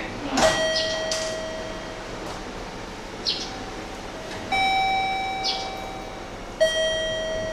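Electronic chime at a railway station platform, sounding slow ding-dong notes. A lower note about half a second in, then a higher note and a lower note about two seconds apart later on, each ringing on for a second or so. Short high chirps come between the notes.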